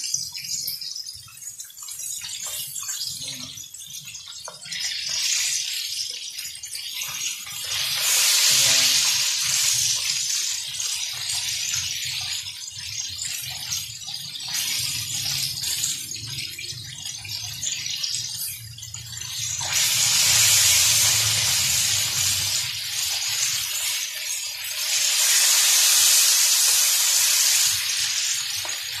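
Battered, pre-boiled chicken pieces deep-frying in hot oil, sizzling steadily and swelling louder several times as the pieces are moved with tongs. The chicken is being crisped and browned on the outside.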